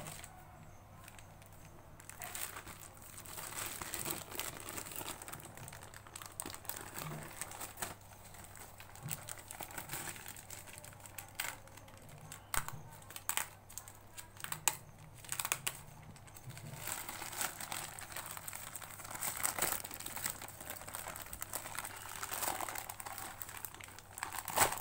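Plastic courier mailer bag crinkling in the hands as it is pulled and torn open at its sealed edge, with irregular crackles and a few sharper rips.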